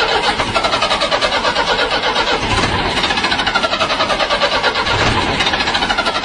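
Rapid, steady sputtering like an engine running, with fast even pulses throughout.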